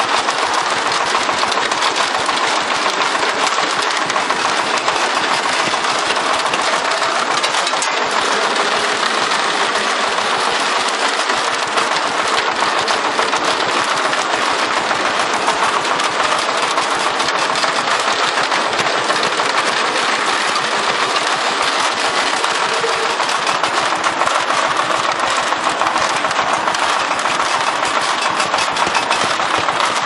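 Concrete mixer drum turning, with a loud, steady, dense clatter of rapid rattling impacts and no let-up.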